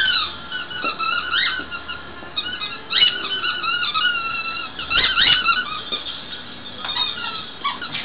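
A dog chewing a squeaky toy, making it squeak again and again; some squeaks are short and some drawn out and wavering, with a louder cluster about halfway through.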